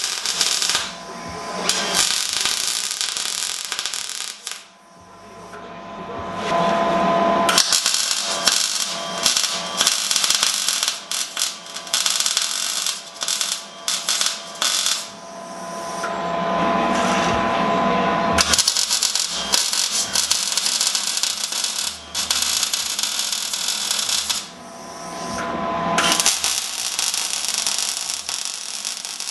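Angle grinder grinding steel with a steady whine, then an Eastwood MIG 175 welder crackling as short beads are laid. The work stops and starts several times with brief pauses between runs.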